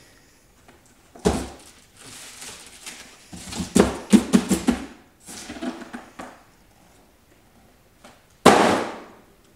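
A cardboard box and a plastic-wrapped 12-inch subwoofer being handled. There is a thump about a second in, then rustling with a quick run of knocks through the middle, and a sharp, loud thump near the end.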